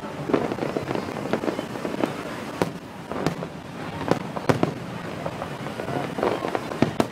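Aerial fireworks display: shells bursting in quick succession, an irregular string of sharp bangs roughly two a second over a steady background hiss.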